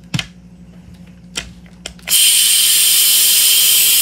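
A few light clicks of a tool on the screw, then about two seconds in a loud, steady hiss starts: high-pressure air escaping from the AEA HP SS .25 semi-auto air rifle's tank through the loosened screw as the tank is emptied.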